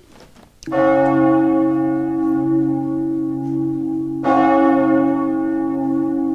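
A large church bell tolling slowly: two deep strokes about three and a half seconds apart, each ringing on with a long hum. It tolls as a knell for a death.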